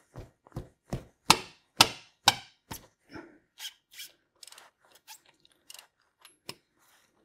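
Hand ratchet clicking in short strokes, about two clicks a second, as it loosens the 24 mm oil strainer cap on a small motorcycle engine.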